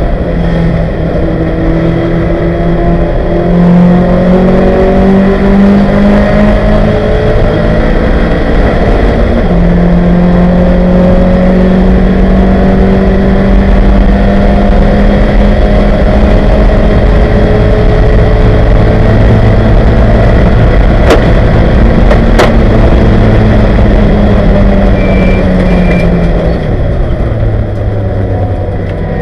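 Ford Capri race car's 2.0-litre engine at full throttle, heard inside the cabin, its pitch climbing through the gears, then holding high and steady at speed before dropping near the end as the car slows. Two brief sharp clicks sound about two-thirds of the way through.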